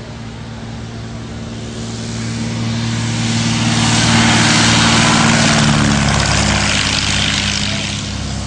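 Light single-engine propeller airplane at full power on its takeoff roll. The steady engine-and-propeller drone grows louder as it passes close by about four to five seconds in, then fades as the plane pulls away.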